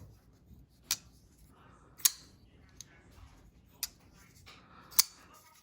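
Kubey KU149C folding knife being opened and closed by its thumb hole: four sharp clicks, roughly a second apart, as the blade snaps open and shut, with faint scraping between some of them.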